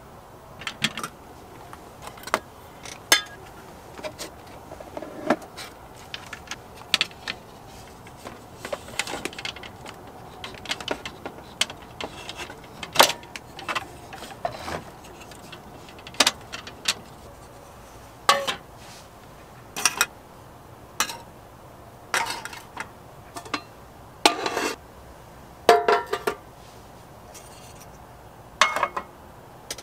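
Scattered clicks, clinks and knocks, a couple dozen spread through the stretch: a small folding wooden-slat shelf with a metal frame is handled and set in place, and camping cookware (pots, a mug, a metal mess tin) is set down on its shelves.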